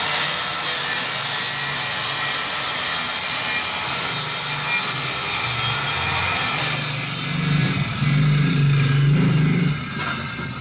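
Circular saw cutting through plywood, a loud steady sawing; about seven seconds in the cut ends and the saw runs on with a lower hum before dropping away near the end.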